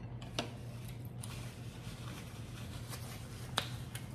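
Quiet room tone with a low steady hum and faint eating noises: a soft click about half a second in and a sharper click near the end, as a paper napkin is picked up.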